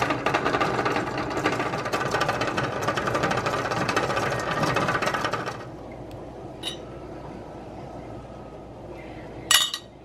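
Water at a rolling boil in a stainless steel stockpot, a dense bubbling that stops abruptly about halfway through. A quieter stretch follows as glass canning jars are handled with a jar lifter: a light click, then a sharp clink of glass and metal near the end.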